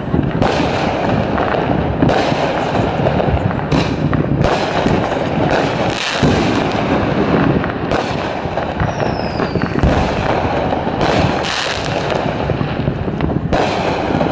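A continuous barrage of neighbourhood fireworks: many overlapping bangs, pops and crackles with no pause, and a brief falling whistle about nine seconds in.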